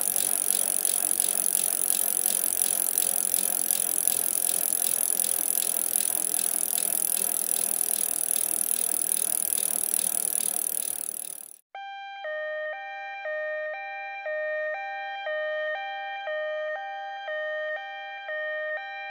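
A dense, fast rattling noise that cuts off abruptly about twelve seconds in, followed by a clean electronic two-tone pattern alternating steadily between a higher and a lower pitch, each held about a third of a second.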